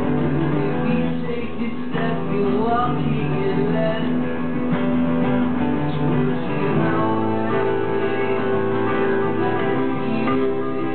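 Two acoustic guitars played together live through a club PA, strummed and picked steadily.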